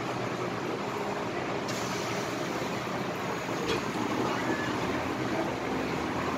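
Inside an MTR M-Train metro car under way: steady rumble of wheels and running gear. A short knock comes about halfway through, and the noise grows slightly louder after it.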